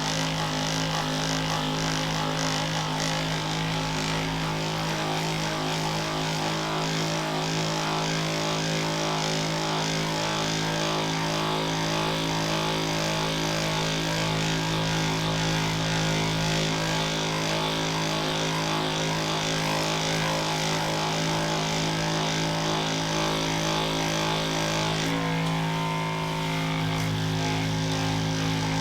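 Electric handheld massager running steadily against the patient's back, a continuous motor hum that shifts slightly in pitch about 25 seconds in.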